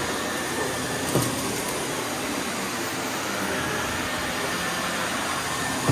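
Vacuum cleaner running steadily, with a constant even rush of suction noise.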